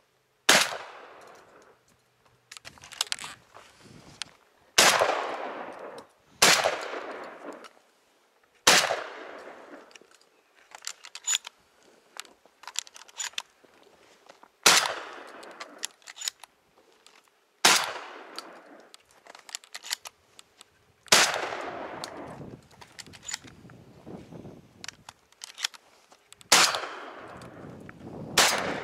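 Shotgun fired over and over at flying doves: about nine loud shots a few seconds apart, each trailing off over about a second, with fainter pops and clicks in between.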